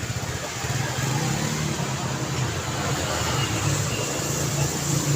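Steady road traffic: cars driving past, engine hum under the constant noise of tyres on the road.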